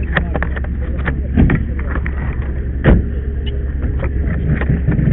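An engine running steadily, with two sharp knocks about a second and a half apart, a lighter one near the end, and scattered clicks and clatter from tools and metal being handled.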